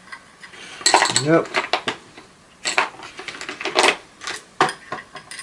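Small metal screwdriver bits clinking and clicking, several separate clinks, as they are picked from a bit set and tried one after another in a Torx bolt.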